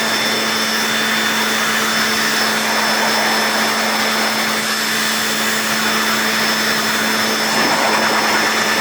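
Cordless battery-powered garden blower vac running steadily, a constant rush of air with an even motor whine, blowing fine dust out of a stick vacuum's main unit.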